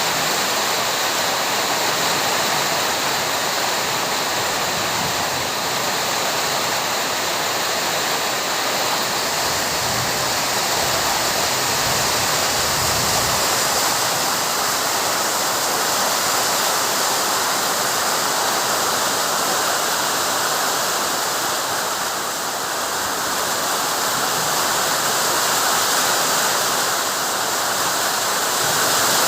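Heavy summer rain in strong wind: a steady rushing hiss that swells and eases slightly.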